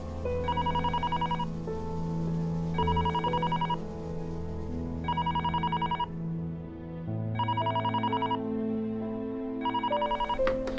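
Electronic desk telephone ringing: five warbling trills about two seconds apart, over soft background music. The last ring is cut short with a click as the handset is lifted.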